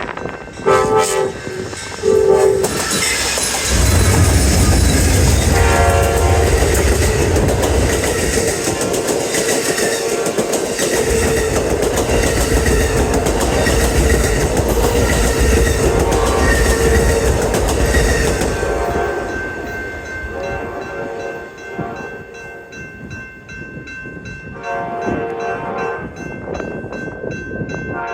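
Amtrak Southwest Chief's diesel locomotives sounding their air horn in short blasts, then passing close with a loud, deep engine rumble as the horn keeps sounding. After that the passenger cars roll by with a regular clickety-clack of wheels over rail joints, and a few more horn blasts come near the end.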